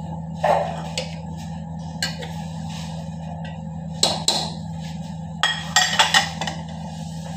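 Metal slotted ladle stirring in a large aluminium cooking pot and knocking against its rim, a few sharp clinks and knocks, then a quick cluster of clatters as the ladle is lifted out and laid on a plate. A steady low hum runs underneath.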